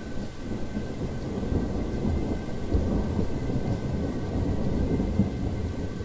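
Rolling thunder over steady rain: a low rumble that swells about a second in and eases off near the end.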